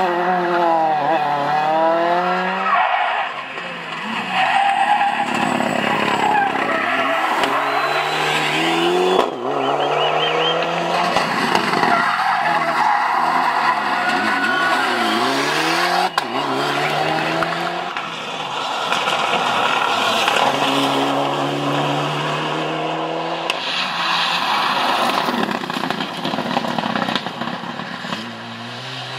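Rally cars, among them a Škoda Fabia and Mitsubishi Lancer Evolutions, passing one after another at full attack, engines revving hard, dropping as they lift and brake for the corner, then rising again on the way out.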